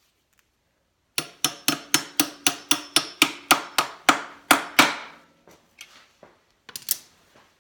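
Hammer tapping the pivot pin into a dirt bike's foot peg mount: about fourteen quick metal-on-metal strikes, roughly four a second, each with a short ringing tone, followed by two lighter taps near the end.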